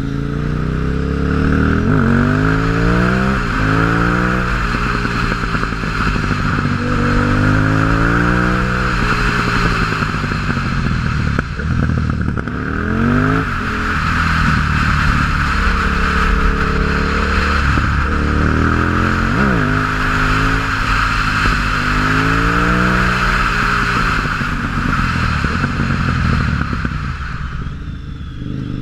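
2006 KTM 950 Supermoto's V-twin engine through a MIVV exhaust with the dB-killers removed, ridden hard. The revs climb repeatedly, and each climb is cut by a sudden drop in pitch as it shifts up through the gears, over a steady hiss.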